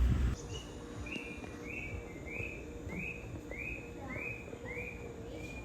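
A bird calling the same short note over and over, about nine times at roughly two a second, over faint outdoor background noise.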